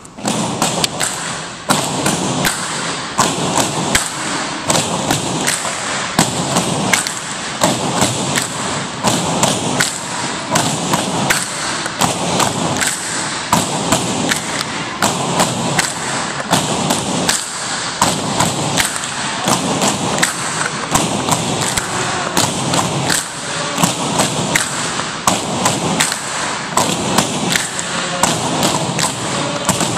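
Tinikling poles knocked on the wooden gym floor and clapped together in a steady, fast rhythm of sharp knocks.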